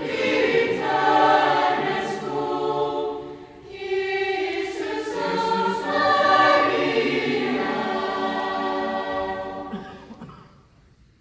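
Lucia choir singing sustained notes in several voices, with a short break about three and a half seconds in. The singing ends near the end and dies away.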